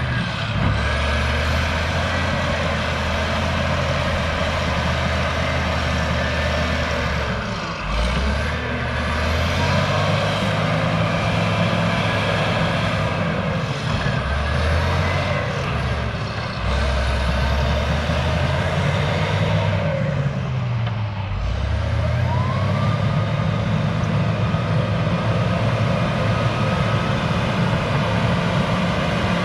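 Cat D6H bulldozer's six-cylinder diesel engine working hard, running continuously, with its pitch dipping and recovering several times as the load changes.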